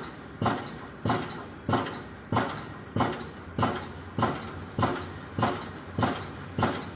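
A steady beat of sharp, ringing percussive hits, about three every two seconds, each dying away before the next.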